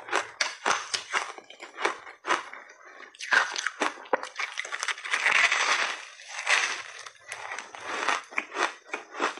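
Close-miked crunching and chewing of hard frozen layered ice: a quick run of sharp, crisp crunches, then a longer, louder stretch of dense crunching a little past the middle as a big bite is ground up.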